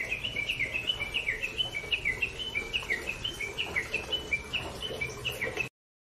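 Bird chirping: a fast run of short two-note chirps, each dropping in pitch, about three a second. It cuts off suddenly near the end.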